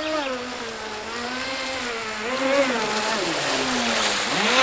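Battery-powered RC speedboat's electric motor whining as the boat runs across the water, its pitch rising and falling with the throttle and dipping twice, about three seconds in and again near the end.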